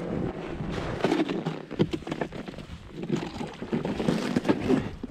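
Irregular crunching and scraping of packed snow and loose ice chunks, with rustling of gloves and a winter jacket, as the stick anchoring a set line is handled at the edge of an ice hole.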